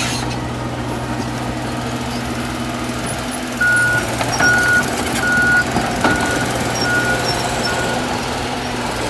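Heavy work vehicle's engine running steadily; a little over a third of the way in, its reversing alarm starts beeping, about six short beeps under a second apart.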